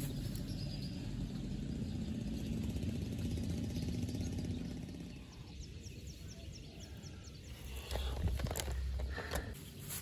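Low steady rumble of a motor vehicle in the background, fading out about halfway through. Then a short run of faint, quick, even ticks (about five a second) and a few light knocks near the end.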